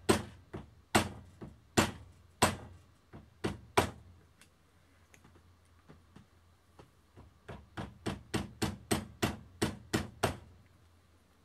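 Light taps of a soft-sided mallet on a wooden dowel punch, driving a Truglo tritium rear sight sideways into the dovetail of a Glock 43 slide. Six or seven spaced sharp knocks, a pause of about three seconds, then a quick run of about a dozen taps at roughly four a second.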